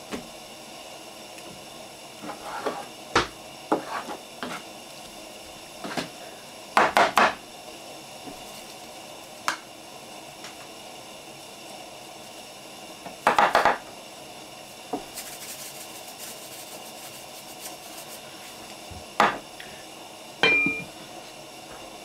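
Cooking-prep knocks and clatters of a knife on a wooden counter and a cast-iron Dutch oven as cut chicken goes into the pot, with louder clusters about a third and two-thirds of the way through. A seasoning shaker rattles briefly after the middle, and a short ringing clink comes near the end as the lid goes on the pot.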